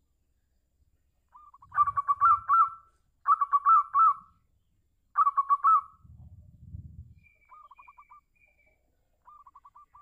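Zebra dove (local perkutut) singing its rapid, staccato coo. Three loud phrases come in the first six seconds, then a brief low rumble, then two fainter short trills near the end.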